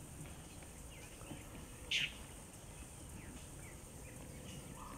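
Songbirds calling: one short, sharp chirp about two seconds in, with fainter scattered chirps over a low steady outdoor background.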